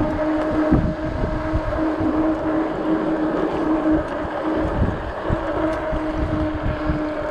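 Ecotric 48-volt fat-tire e-bike under way on pedal assist: the motor whines at a steady pitch, with wind rumbling and buffeting on the microphone.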